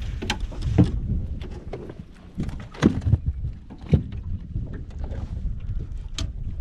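Irregular knocks and clicks of handling on a small boat, over a steady low rumble of wind on the microphone.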